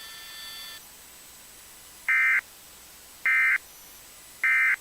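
Three short bursts of Emergency Alert System digital data tones, the SAME end-of-message code that closes an alert. They are equal and about a third of a second each, spaced a little over a second apart, over a low hiss.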